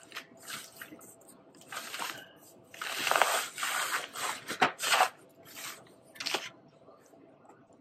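White paper wrapping rustling and crackling as it is pulled off a canvas painting and crumpled by hand, in a run of crisp rustles over about six seconds, loudest about three seconds in.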